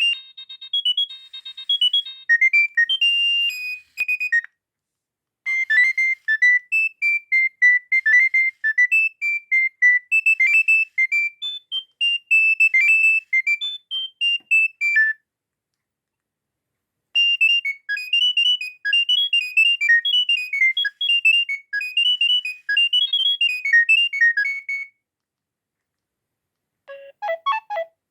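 Nokia 6610 mobile phone playing its ringtones one after another: short electronic tunes of quick, high beeping notes, separated by pauses of a second or two.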